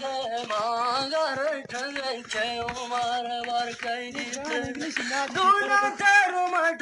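Singing: a voice sings a melody with long held, wavering notes.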